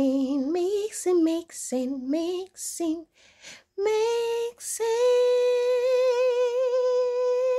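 A woman singing freestyle, unaccompanied: short sliding phrases, then from about five seconds in one long held note with a slight wobble.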